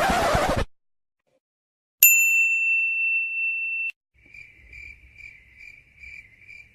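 Stock sound effects in a row: a short noisy burst, then a bright ding that holds for about two seconds and cuts off suddenly, then faint cricket-like chirping at about two and a half chirps a second.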